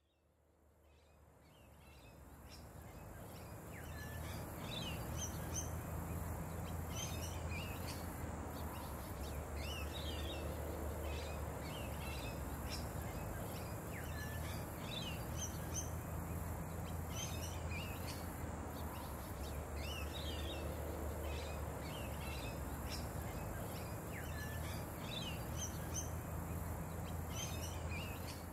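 Background birdsong: small birds chirping in short clusters of high notes every second or two, over a steady low hum and ambient noise. The sound fades in over the first few seconds and fades out at the end.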